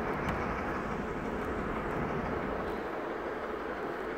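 Steady low rumble and hiss of a passenger train of locomotive-hauled coaches at a platform.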